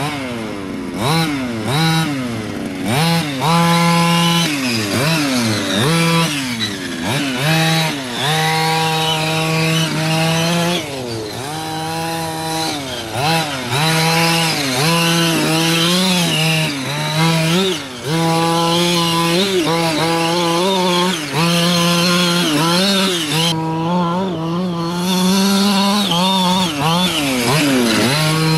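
Losi 5ive-T RC truck's 26cc two-stroke gasoline engine revving up and down over and over under throttle as the truck is driven, often holding a steady high buzz for a second or two before letting off.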